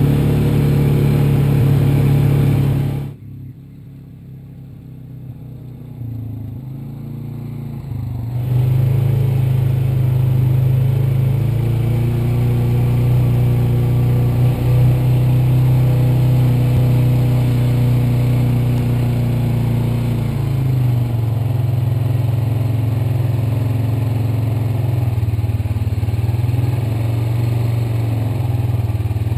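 2014 Polaris Ranger 570 EFI utility vehicle's single-cylinder engine running as it drives. It drops to a much quieter level about three seconds in, then comes back up about five seconds later and runs steadily.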